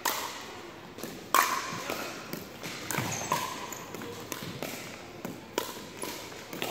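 Pickleball paddles hitting a plastic ball back and forth in a doubles rally: a string of sharp knocks, the loudest about a second and a half in.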